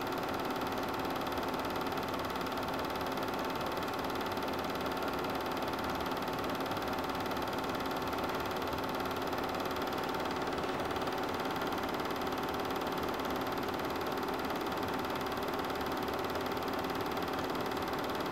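Super 8 film projector running: a steady mechanical whir with a constant hum of several steady tones, unchanging throughout.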